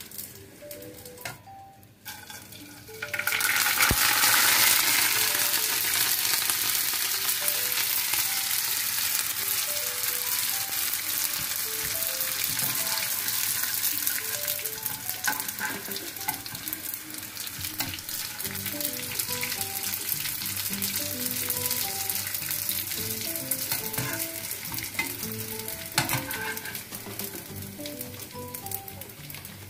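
Dried boiled noodles deep-frying in hot oil: a sizzle that starts suddenly about three seconds in, loudest at first, then settling to a steady hiss, with a few sharp clicks along the way.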